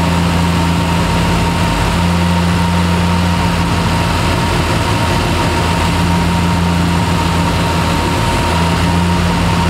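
Triumph TR6's straight-six engine idling steadily while its twin Zenith-Stromberg carburettors are balanced, an airflow meter held over each carb intake in turn. A steady high tone runs over the engine note.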